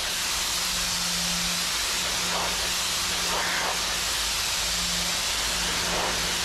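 Pressure washer jet spraying water against the painted steel wall of a shipping container: a steady hiss of spray, with a faint low hum underneath that breaks off briefly a few times.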